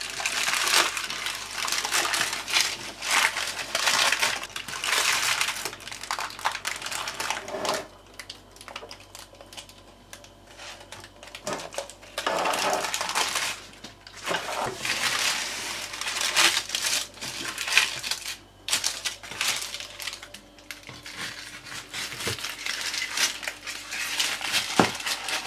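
Baking paper rustling and crinkling in bursts, with light clinks of a fluted metal tart tin, as a baked apple tart is unmolded. Near the end a metal spatula slides under the crust.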